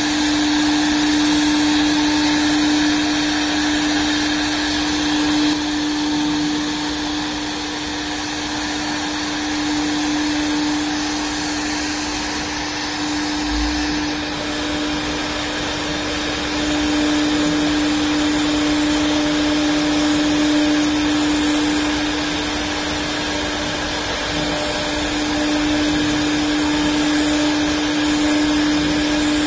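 The 4.5 kW air-cooled spindle of a 1325 (4x8 ft) CNC wood router running with a steady whine over a continuous rushing noise as its bit cuts into a wooden board. The loudness rises and falls slightly.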